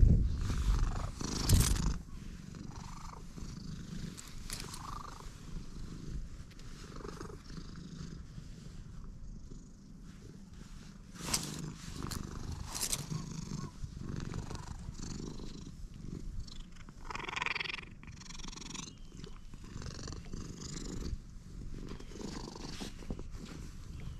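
An orange-and-white stray cat purring steadily, close to the microphone, while it is stroked and rubs against the person. A couple of loud bumps in the first two seconds.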